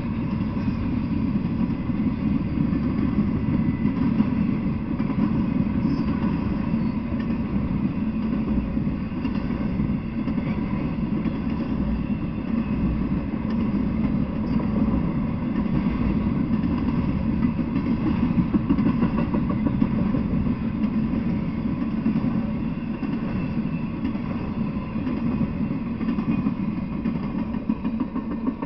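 Intermodal freight train rolling past: a steady, loud rumble of steel wheels on rail from the passing container and trailer cars, easing off near the end as the tail of the train approaches.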